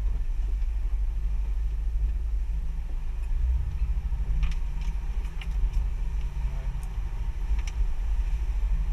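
Boat engine running steadily at trolling speed, a low rumble, with a few faint light clicks about halfway through and again near the end.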